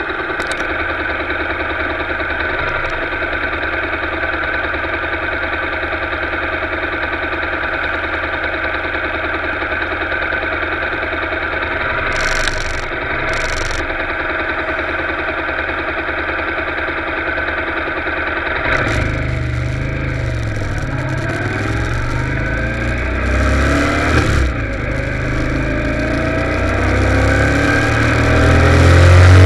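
Motorcycle engine idling steadily while stopped. About 19 seconds in it pulls away and accelerates, its pitch rising and falling through the gear changes, and it grows louder near the end.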